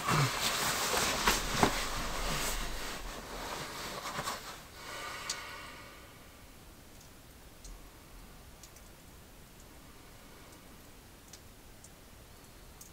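Sleeping bag and clothing rustling with scattered clicks as a person shifts and lies down, for about five seconds. After that it is quiet apart from a faint hiss and a few light ticks.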